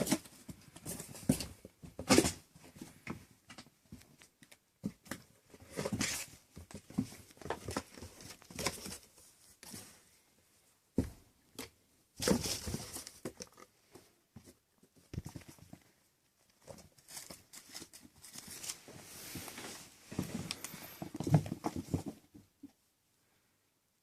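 Six-week-old kittens playing: an irregular patter of small paws and claws scrabbling and scratching, with rustling and crinkling.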